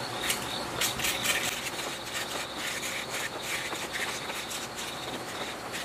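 Small blade scraping the enamel insulation off the ends of copper winding wire, a run of short, irregular scraping strokes, with insects chirping steadily in the background.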